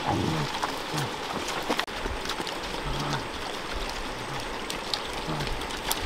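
Pigs, sheep and dogs eating from shallow baskets: a steady crackle of chewing and rooting through the food, with short low pig grunts every second or so.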